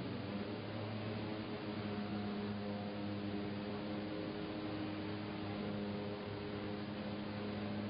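JETS 400 corrugator line running: a steady industrial hum with several held low tones over an even hiss.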